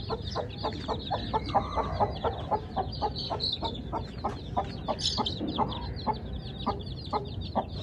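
Mother hen clucking in a steady run of short calls, about three or four a second, while her chicks peep high and thin.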